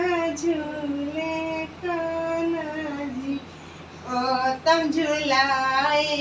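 A woman and a child singing a devotional song together in long, held notes, with a short pause about halfway.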